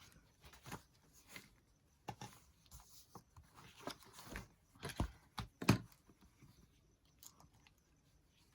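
Paper and craft materials being handled: scattered soft rustles and light taps, with a couple of sharper knocks about five to six seconds in.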